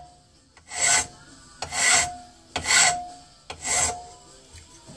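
Hand file drawn across the edge of a metal bracket clamped in a bench vise: four strokes about a second apart, each followed by a short ringing note from the metal.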